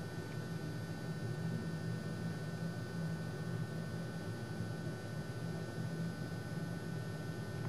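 Steady low electrical hum under an even hiss, with a few faint constant tones and no distinct events.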